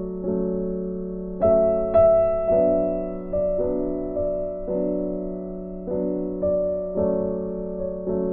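Soft background piano music: sustained chords and notes struck about once a second, each fading before the next.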